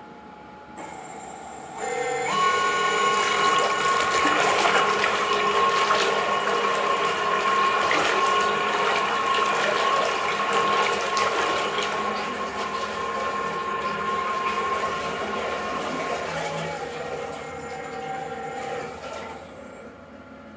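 Electric propeller thrusters running submerged in a bathtub: a steady motor whine over churning water, starting about two seconds in, dropping in pitch around sixteen seconds and stopping near the end.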